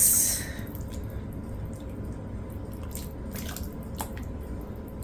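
Cold, thick vegetable-and-beef stew being stirred with a silicone spoon in an enamelled cast-iron pot: wet squelching and sloshing, with a brief louder slop at the start and a few light knocks of the spoon against the pot.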